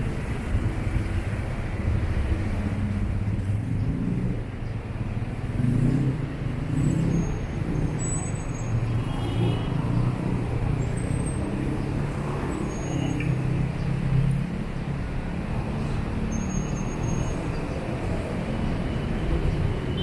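Road traffic: motor vehicle engines running and passing, a steady low engine hum that swells and fades as vehicles go by.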